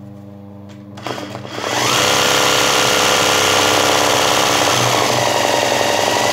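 Sewing machine starting up about a second and a half in, then running fast and steadily as it stitches dense satin-stitch embroidery on fabric held in a hoop.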